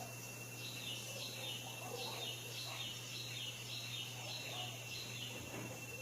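A bird calling a run of short, falling chirps, about two a second, over a steady faint hum and a thin high tone.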